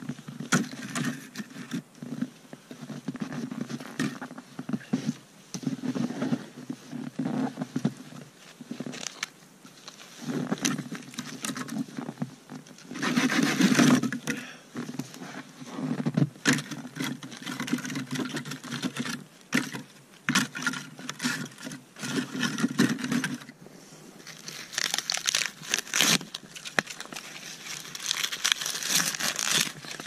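Dry wooden poles being handled and laid onto a pole frame: irregular knocks, scrapes and clothing rustle, loudest about halfway through. For the last several seconds, birch bark crackling and tearing as it is peeled from a birch trunk for tinder.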